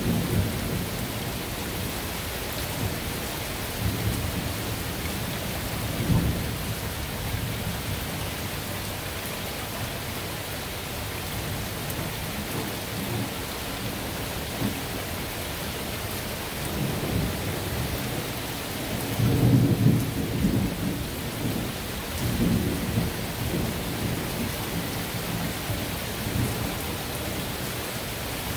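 Steady rain falling during a thunderstorm, with several rolls of thunder rumbling in and out; the loudest swells about two-thirds of the way through.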